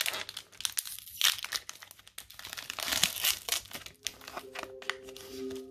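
Foil Pokémon TCG booster pack wrapper crinkling as it is torn open by hand, a dense run of crackles.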